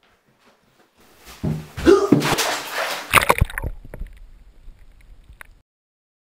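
Water splashing and sloshing, building from about a second in and loudest around two seconds in, with a cluster of sharp knocks just after three seconds; it fades and then cuts off suddenly.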